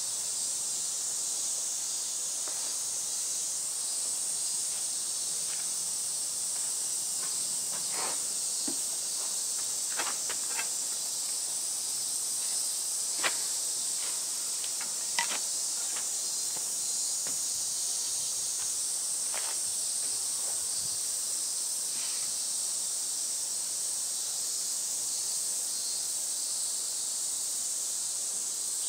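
Steady high-pitched hiss of insects, typical of summer cicadas, with a few sharp wooden knocks as a heavy log chair seat is tipped and rolled on a log roller. The two loudest knocks come a couple of seconds apart around the middle.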